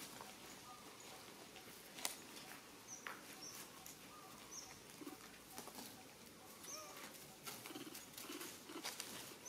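Faint outdoor ambience: a few short, high bird chirps scattered through, with light ticks and rustles in dry leaf litter.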